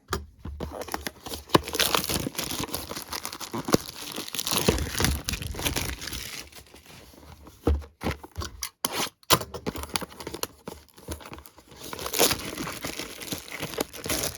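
Plastic wrapping being torn and crinkled off a baseball card repack box: dense irregular crackling with sharp rustles and clicks of handling.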